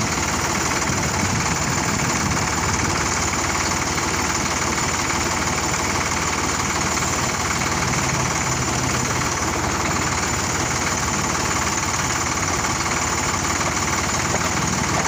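Sonalika tractor's diesel engine running steadily.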